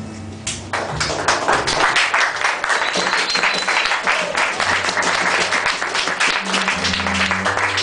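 Audience applauding, starting about a second in, with low held notes of music underneath.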